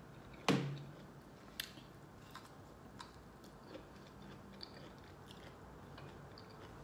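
A person biting into and chewing a spear of sautéed asparagus: one sharp bite about half a second in, then soft, scattered chewing clicks.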